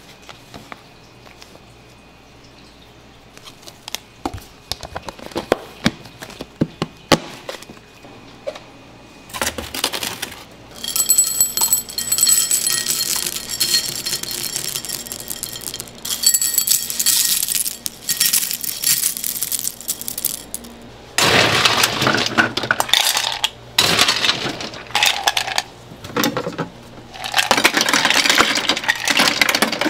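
Scattered light taps and clicks, then dry cereal rings clattering into a ceramic bowl, then ice cubes rattling and clinking out of a steel bowl into the hopper of a shaved-ice machine in several pours.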